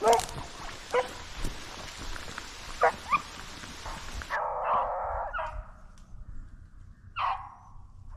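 Rabbit-hunting dogs giving tongue on a chase: a few short, sharp barks in the first half, then longer drawn-out calls from about halfway.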